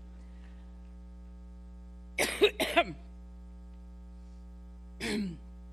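A woman coughing twice in quick succession about two seconds in, then once more, shorter, near the end, over a steady electrical mains hum.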